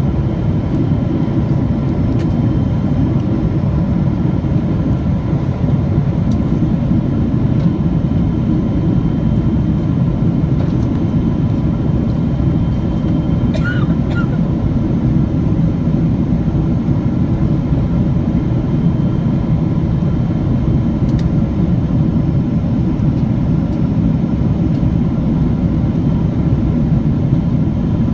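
Steady in-flight cabin noise of a Boeing 777-300, heard from a window seat beside its Rolls-Royce Trent 800 turbofan: a loud, even low rumble of engine and airflow with faint steady engine tones above it. A brief faint click about 14 seconds in.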